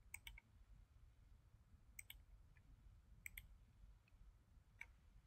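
Faint computer mouse clicks: a quick double click near the start, again about 2 s and 3.3 s in, and a single click near the end, over near silence.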